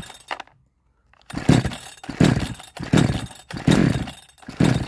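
62cc two-stroke chainsaw being pull-started, with about five quick pulls on the recoil starter turning the engine over without it catching. The owner puts the failure to start down to a weak spark and ignition timing set too far advanced.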